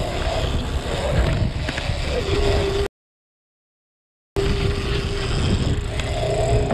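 Boat engine running loud and steady. A steady whine joins in a little past two seconds, and the sound cuts out to dead silence for about a second and a half near the middle.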